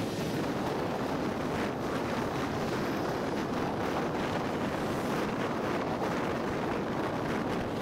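Steady wind rush on the microphone over road and traffic noise from a vehicle moving along a highway.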